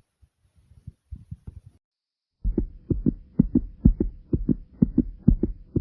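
Heartbeat sound: faint, soft low thumps, then after a brief gap, about two and a half seconds in, it turns suddenly loud and fast, with rapid repeating thumps over a faint steady hum.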